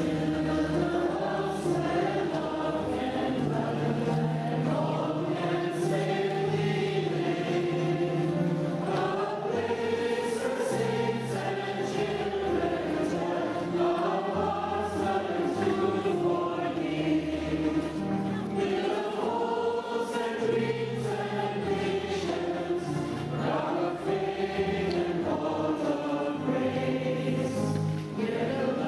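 Choir and congregation singing the entrance hymn of a Catholic Mass in phrases of a few seconds each. Held bass notes from an instrumental accompaniment sound underneath and change pitch in steps.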